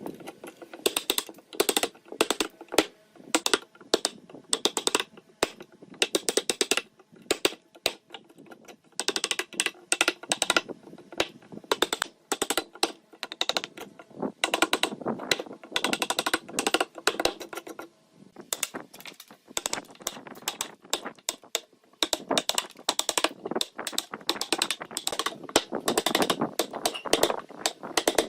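Rapid, irregular light taps and knocks, typical of hand tools working wood, coming in bursts with brief pauses between them.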